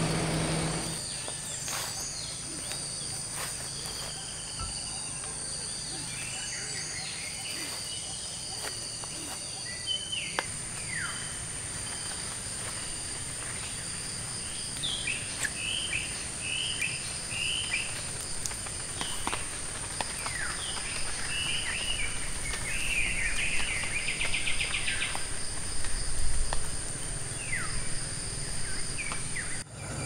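Rainforest ambience: a steady high insect drone under birds chirping and calling. A run of short calls comes in about halfway through, ending in a quick trill.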